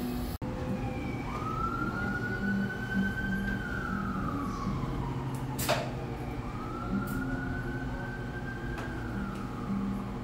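Robot barista arm's servo motors whining as it moves: twice the whine rises in pitch, holds, then glides down as the arm slows. A short sharp noise comes between the two moves.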